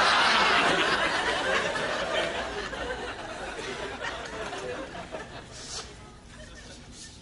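Audience laughter, loud at first and dying away over several seconds.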